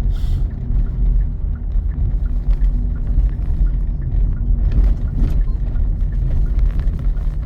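Steady low rumble of a car's road and engine noise, heard from inside the moving car, with a brief hiss just after the start.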